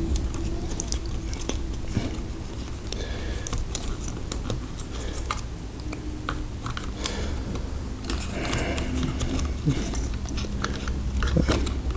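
Scattered small clicks and taps of hands working inside an open laptop, fitting cables, connectors and screws back into place, over a steady low hum.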